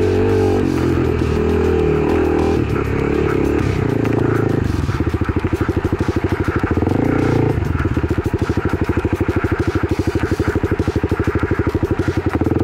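Kawasaki KLX300's single-cylinder four-stroke engine running, then about five seconds in settling to an even, rapid pulsing, as at idle or low revs.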